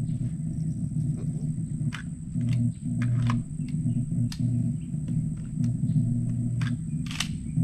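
Scattered gunshots on a shooting range, about a dozen sharp cracks at uneven spacing, over a steady low rumble.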